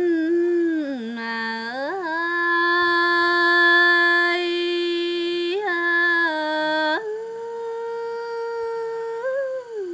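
A woman singing lượn cọi, a Tày folk song, solo and unaccompanied. She holds long notes for several seconds at a time, joined by slides and small turns in pitch.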